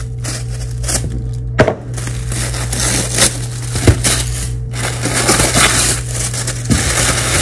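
Paper wrapping crinkling and rustling in irregular crackles as a wrapped bundle is unrolled by hand, over a steady low hum.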